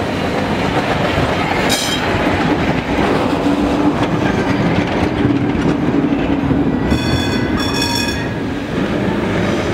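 Vintage tramcars rolling past close by on street rails, the wheels rumbling and clattering over the track, with a steady hum in the middle. Short high ringing tones sound once about two seconds in and twice about seven and eight seconds in.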